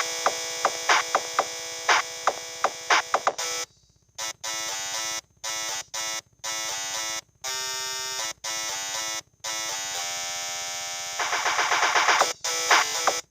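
Samsung SGH-T410 mobile phone playing a built-in ringtone through its small loudspeaker: a buzzy electronic melody of short stepping notes. It breaks off briefly about four seconds in, and turns into a fast pulsing run near the end.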